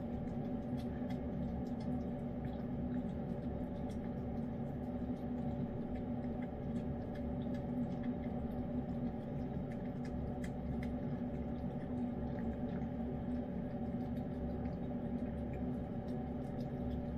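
A cat licking and chewing wet pâté food from a hand-held bowl: faint scattered small wet clicks, over a steady low hum from an unseen machine.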